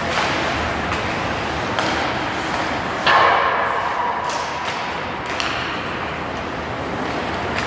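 Ice hockey play heard from rinkside: sharp clacks and knocks of sticks and puck, a handful over several seconds, the loudest about three seconds in, over a steady arena din.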